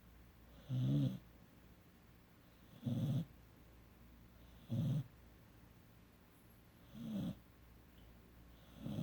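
A 17-week-old Rottweiler–Mastiff cross puppy snoring in its sleep: five short snores, evenly spaced about two seconds apart.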